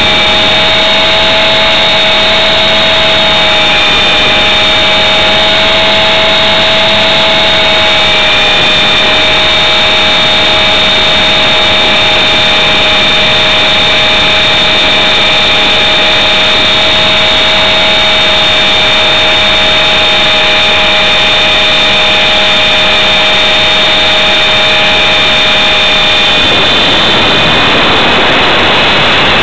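Blade 400 electric RC helicopter in flight, heard from its own onboard camera: steady high whining tones from the motor and drive over a loud rushing noise of rotors and air. Near the end the lower whine drops out.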